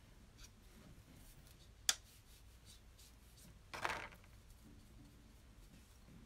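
Quiet handling of painting supplies at a table: a single sharp click about two seconds in and a short scraping rustle near four seconds in.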